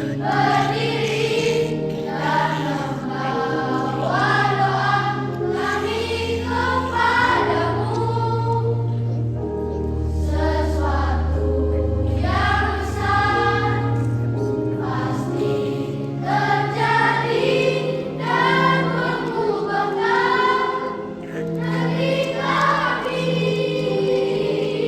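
A children's school choir singing a hymn in unison, over an accompaniment that holds long, steady low bass notes.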